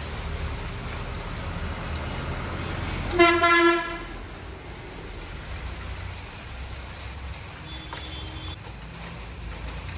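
A vehicle horn sounds one short honk, under a second long, about three seconds in, over a steady low engine-like rumble.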